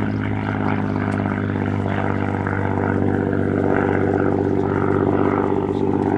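Supermarine Spitfire PR XI's Rolls-Royce Merlin V12 engine running steadily in flight, a little louder around five seconds in.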